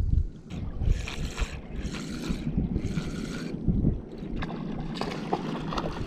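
Wind rumbling on the microphone, with water swishing and splashing in the shallows: three swishes about a second apart, then a run of small crackling splashes.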